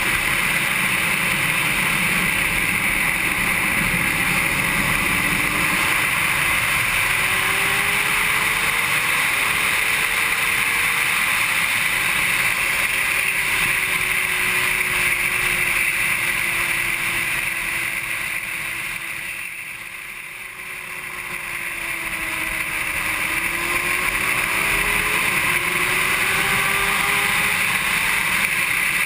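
Honda CBR600RR inline-four engine at track speed, its pitch climbing and falling as the rider works through the gears, under heavy wind rush on the microphone. About two-thirds of the way through, the sound drops away for a couple of seconds, then builds back up as the bike accelerates again.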